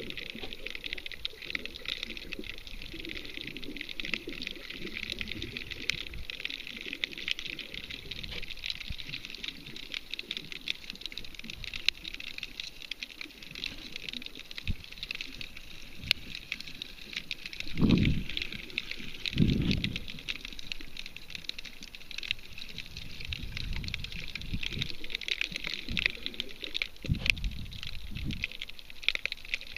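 Underwater sound over a rocky reef: a steady dense crackle of tiny clicks. Just past the middle come two low muffled thumps a second and a half apart, then a smaller one near the end.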